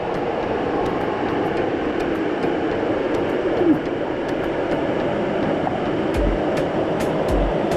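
Waterfall rushing: a steady roar of falling water, with background music ticking faintly over it and a low beat coming in near the end.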